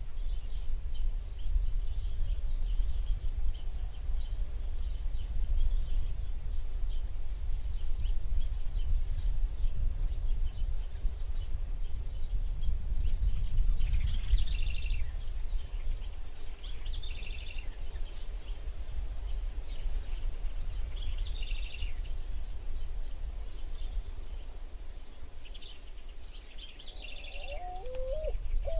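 Low, uneven rumble of wind on the microphone, with small birds chirping in short trills every few seconds. Near the end a bird gives low cooing calls.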